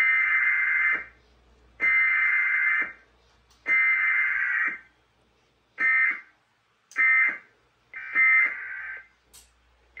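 Emergency Alert System SAME digital data bursts for a Required Weekly Test: three bursts of about a second each, about a second apart, then three shorter bursts, the end-of-message code.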